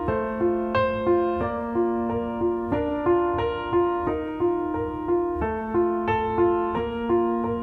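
Instrumental piano playing a repeating pattern of notes, about three a second, over a held low note.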